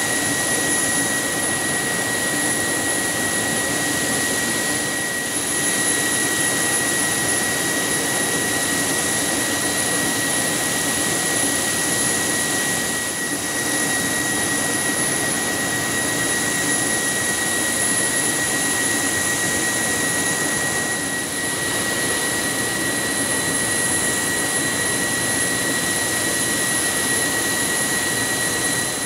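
A small gas turbine running steadily beside a parked P-3C Orion whose propeller engines are shut down: a constant high-pitched whine over an even rushing noise.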